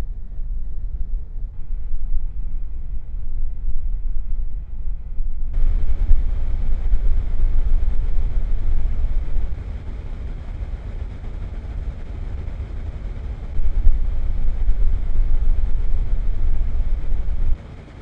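Electric air-circulator fan running steadily, heard through a shotgun microphone: a constant rush of air over a strong low rumble. Its level steps up and down several times as the microphone is turned and its low-cut filter is switched, and the low rumble thins near the end once the 150 Hz low cut is on.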